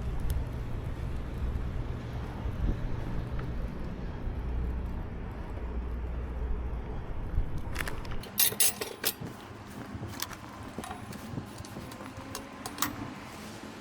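Low rumble of wind and tyres while riding a bicycle, which stops about eight seconds in. A run of sharp clicks and metallic clinks follows.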